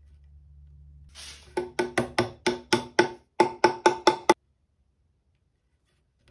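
A rapid, even run of sharp wooden knocks, about five a second, from a small block of wood tapped against the corner of a hardwood table leg. There is a brief pause partway through, and then the knocks stop abruptly.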